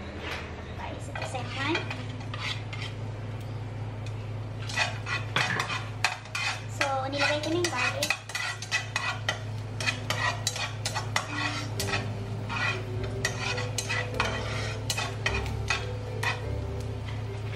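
A utensil scraping and tapping against a nonstick frying pan, stirring chopped garlic in oil. The clicks are sparse at first and come thick and fast from about five seconds in.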